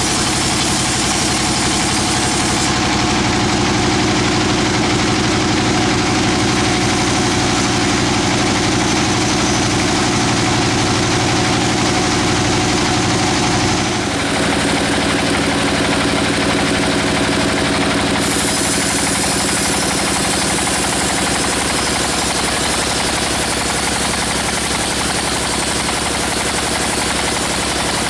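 Engine-driven sawmill running steadily, a continuous mechanical drone with a steady hum; the pitch and character change abruptly about halfway through.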